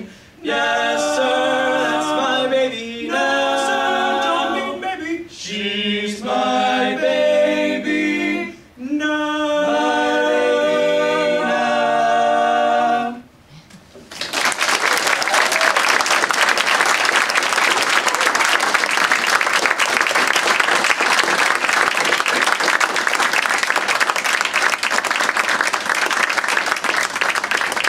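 Male barbershop quartet singing a cappella in close four-part harmony, in short phrases that close on a long held chord about 13 seconds in. After a brief pause, the audience applauds.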